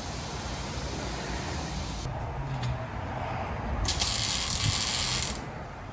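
Tool work on a car's exhaust as a new exhaust tip is fitted and fastened: a ratcheting mechanical sound, with a loud hissing rush about four seconds in that lasts over a second.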